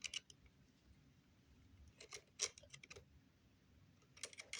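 Faint clicks and scrapes of a small hand tool working a stuck screw on a toy RC car, in short clusters: once at the start, a few around two to three seconds in, and more near the end.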